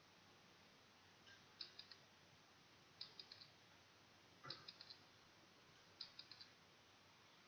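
Faint ticking sound effect of a quiz countdown timer: a quick cluster of three or four sharp clicks about every one and a half seconds, four clusters in all, starting about one and a half seconds in.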